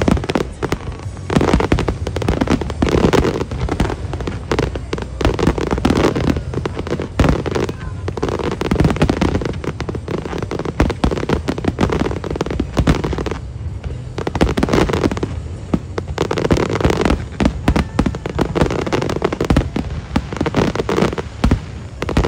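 Fireworks display: a dense, unbroken barrage of shells going off, many bangs a second overlapping one another.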